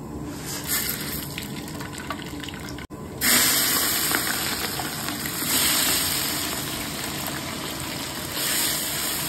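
Whole spices sizzling in hot oil in a large aluminium cooking pot, then about three seconds in sliced onions hit the oil and a loud, steady hissing sizzle takes over.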